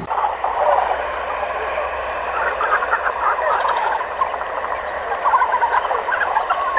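Herd of blue wildebeest calling: many short grunting calls overlapping in a dense, continuous chorus.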